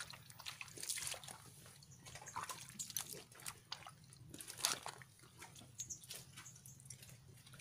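Footsteps in rubber sandals wading through shallow muddy water, with irregular small splashes, squelches and drips as the feet lift and set down.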